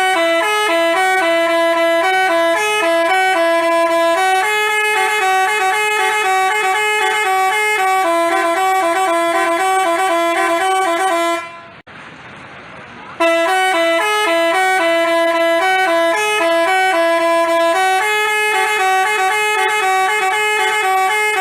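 Basuri (telolet) multi-tone bus horn playing a melody, several horn tones sounding together. The tune stops abruptly about 11 seconds in, then starts over about a second and a half later.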